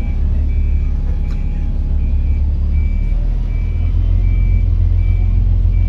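Volvo B7 bus's six-cylinder diesel engine running, heard from inside the saloon, getting louder about three and a half seconds in. Over it, a short high electronic beep repeats about every three-quarters of a second, like the bus's reversing alarm.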